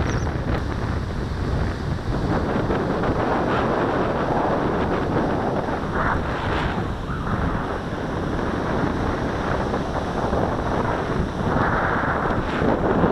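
Strong wind buffeting the microphone in gusts, over the wash of breaking surf.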